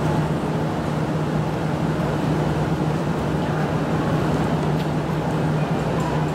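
Steady low mechanical hum of a train standing at a station platform, unchanging throughout.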